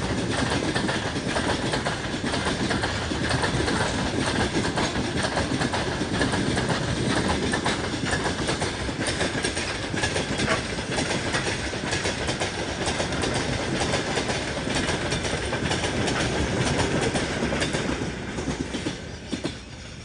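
Freight train rolling past, its wagon wheels clicking over the rail joints in a steady clickety-clack. The sound falls away near the end.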